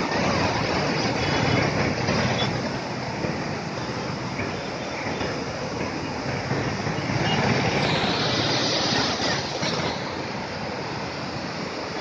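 Fast, turbulent floodwater rushing and churning in a swollen river, a steady dense rush of water noise.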